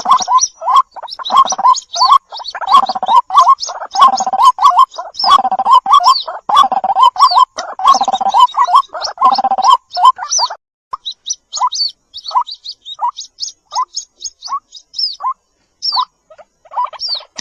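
White-breasted waterhen calling: rapid, repeated short calls with high chirping notes, crowded together for about the first ten seconds, then coming singly about twice a second, with a short pause near the end.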